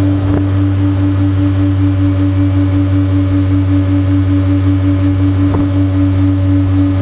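Twinstar RC plane's twin electric motors and propellers heard from the onboard camera: a loud, steady low drone with a regular throb, plus a thin high steady tone. Two brief blips come through, about half a second in and near the end.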